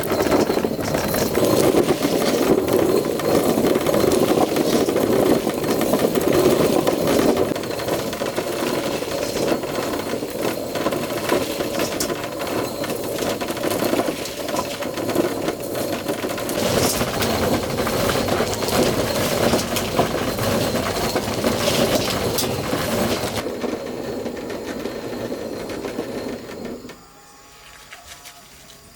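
A small machine running with a fast, dense clatter, cutting off sharply near the end.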